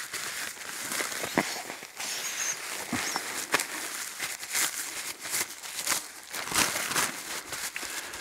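Nylon pump sack rustling and crinkling in irregular handfuls as it is gathered and rolled down by hand, pushing air into an inflatable sleeping pad.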